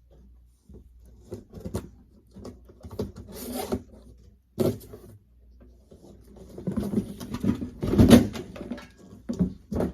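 Unboxing: cardboard and packing being handled, with irregular rustling, scraping and knocks, loudest about eight seconds in.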